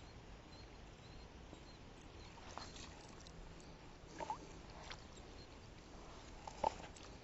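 A few faint, short clicks and light taps, a few seconds apart, over a quiet background, the last near the end the loudest.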